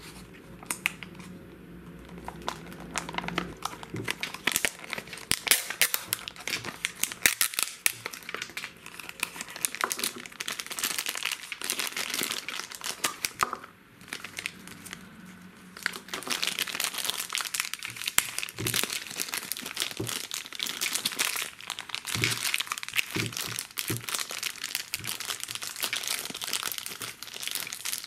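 Crinkly foil and plastic wrapping of a Num Noms blind-box toy being peeled, torn open and crumpled by hand: a dense, irregular crackling with a brief lull about halfway through.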